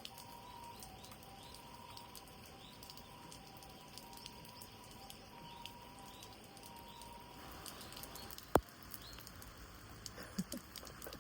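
Light rain pattering, with faint bird chirps in the background. A single sharp click about eight and a half seconds in.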